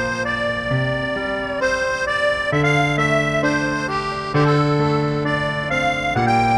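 Background music: a slow melody in held notes over chords, the notes changing every half second to a second.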